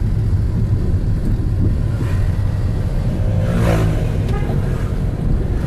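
Road noise inside a moving car: a steady low rumble of engine and tyres. About three and a half seconds in, a brief rising-and-falling engine note from passing traffic.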